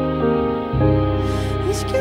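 Slow, sad-sounding instrumental background music with held chords; the chord and bass change about a third of the way in.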